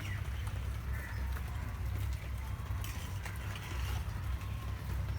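A ladle stirring and mixing chicken and masala in a cooking pot, with irregular knocks and scrapes, over a steady low rumble.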